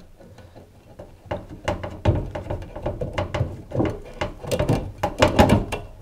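Irregular metal clicks, knocks and light thuds as the outer rotor of a washing machine's direct-drive motor is worked loose and pulled off the drum shaft by hand, starting about a second in and busiest from about two seconds in.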